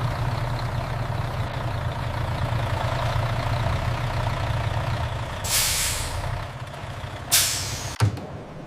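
Steady low machine hum, with two short bursts of hissing air about a second and a half apart and a sharp click near the end.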